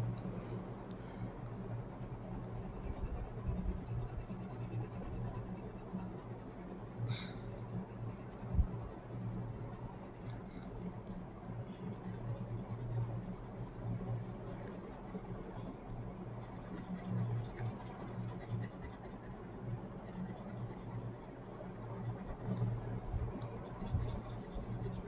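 Coloured pencil scratching softly back and forth on paper as an area is shaded in, over a low steady hum.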